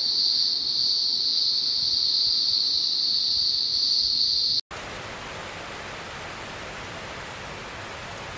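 A steady high-pitched hiss, then, after an abrupt cut a little past halfway, the even rushing of a waterfall.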